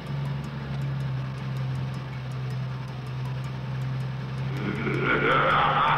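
Cartoon garbage truck engine sound effect: a steady, low drone of a running motor. A louder, brighter sound swells in over it near the end.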